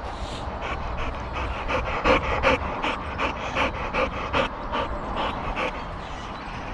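Boxer dog panting rapidly, about four breaths a second, close to the microphone: out of breath after hard play.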